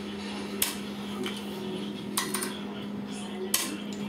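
Wooden chess pieces clacking down on the board and the chess clock being tapped during a game: a handful of short, sharp clacks, two in quick succession a little past two seconds in, over a steady low hum.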